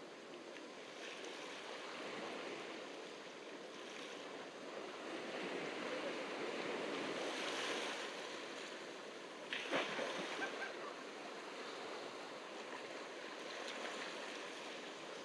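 Ocean waves breaking and washing onto the beach, swelling and easing. A sudden sharp splash or knock stands out a little under two-thirds of the way through.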